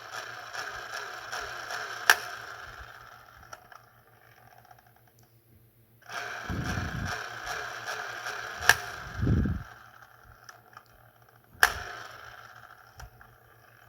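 Die-cast toy cars rolling and rattling along a plastic Hot Wheels track set in two runs, each a few seconds long and fading. Sharp plastic clicks and knocks come from the set's trigger mechanism, the loudest about two seconds in, near nine seconds and near twelve seconds.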